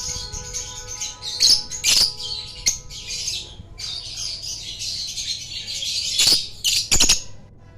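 A flock of lovebirds chattering continuously in their aviary, with several sharp, loud notes standing out; the chatter drops away briefly just before the end. A faint steady hum runs under the chatter for the first few seconds.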